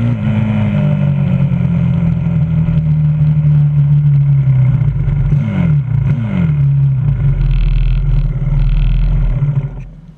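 A 125cc pit bike's single-cylinder engine running at low speed, heard from onboard, with two quick throttle blips about five and a half and six seconds in. The engine is switched off and cuts out just before the end.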